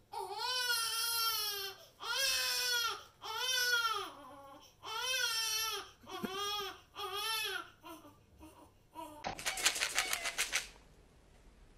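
Cat meowing: a series of about six drawn-out meows, each rising and falling in pitch, then a few shorter ones. About nine seconds in, a quick rattle lasting a second and a half, a plastic treat tub being shaken.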